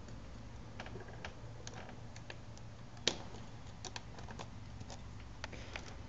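Small irregular clicks and light scraping of a steel lock pick and tension wrench working the pins inside a brass pin-tumbler deadbolt cylinder, with one sharper click about three seconds in.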